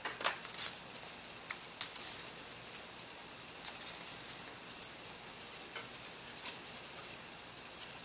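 Thin laser-cut balsa sheet worked by hand: a scatter of small sharp cracks and ticks as the tabs holding the motor stick blank break and the part is popped free, with light handling rustle between.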